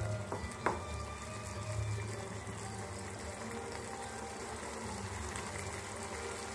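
Thick prawn and cashew gravy simmering and sizzling in a non-stick frying pan as it is stirred with a spatula, over a low steady hum. A couple of sharp knocks come just under a second in.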